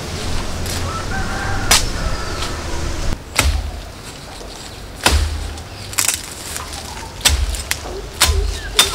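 A curved knife hacking at a leafy tree branch: about seven sharp chops spaced a second or so apart, each with a dull knock. Birds chirp faintly in the background.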